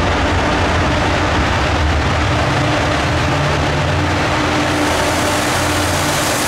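A train running close by: a steady low engine drone under a constant rushing noise, brightening in the upper range from about five seconds in.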